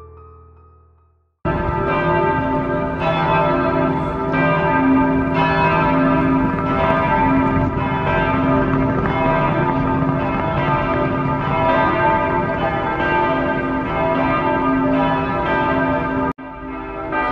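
Church bells of the Berlin Cathedral pealing: several large bells struck again and again, their tones ringing into each other. The ringing starts suddenly about a second and a half in, after background music has faded out, and breaks off for an instant near the end before going on.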